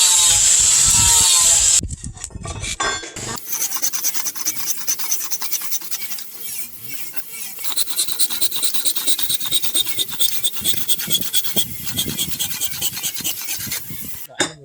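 A power grinder runs on steel and stops about two seconds in. Then a hand file scrapes back and forth across the steel knife blade in rapid, rough strokes, with a faint metallic ring.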